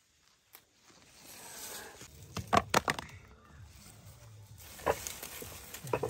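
Leaves and stems rustling as greens are picked by hand from dense undergrowth, with a few sharp snaps: a cluster about halfway through, then single ones around five seconds in and near the end.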